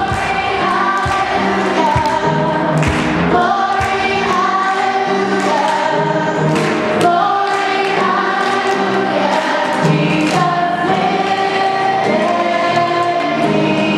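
A choir of many voices singing a sustained song with accompaniment. A few low thumps sound in the first three seconds.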